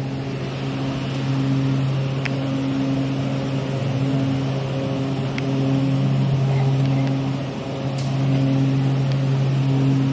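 Steady low mechanical hum with broken higher hum lines and a few faint clicks, typical of supermarket ambience.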